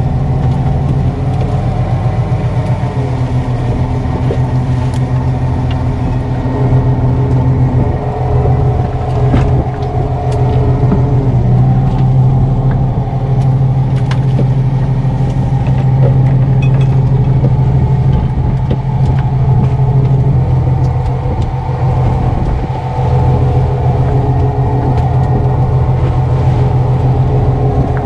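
Fishing boat's engine running with a steady low hum, its pitch shifting slightly a few times, with short knocks and clicks from work on deck.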